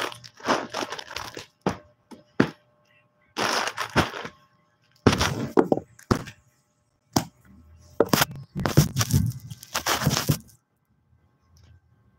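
Loud crackling, rustling and knocking of things handled close to the microphone, in irregular bursts of a second or less with short pauses between them.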